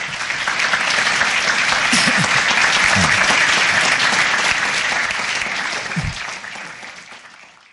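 Live audience applauding, fading out over the last two seconds.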